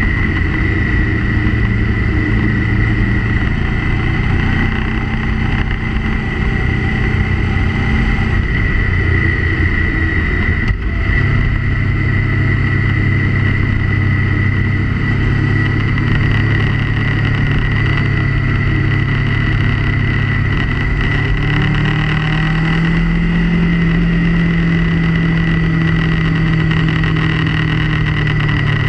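Motorcycle engine running under way, with a steady high whine and a constant rush of wind. About eleven seconds in there is a brief click, and the engine note steps up. Near the end the note rises briefly and settles again.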